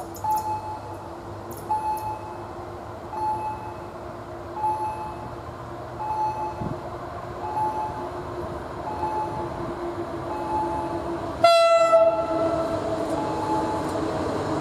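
EU07 electric locomotive approaching with a train of flat wagons, its running noise growing louder, and one short loud horn blast about three-quarters of the way in. Before the horn, a short high beep repeats about every three-quarters of a second.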